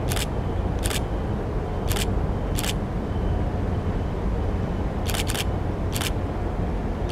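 Steady low outdoor rumble with seven sharp clicks, most about a second apart, a pause in the middle, and two in quick succession about five seconds in.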